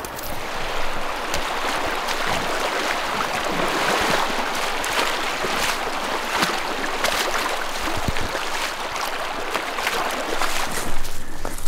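Boots wading through a shallow, rocky creek: water splashing and sloshing with each step over the steady rush of the stream.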